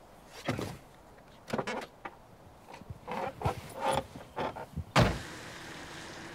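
Knocks and rustles as a car seat is put into a convertible and the driver climbs in. About five seconds in, a car door slams shut, the loudest sound. A steady car noise follows.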